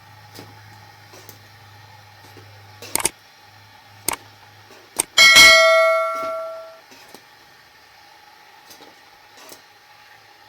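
A few light knocks, then metal cookware struck once with a loud ringing clang that fades over about a second and a half. A low hum is heard in the first few seconds.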